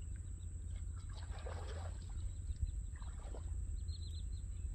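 Open marsh ambience: a low, even rumble of wind on the microphone under a thin steady high whine, with a quick run of small bird chirps about four seconds in.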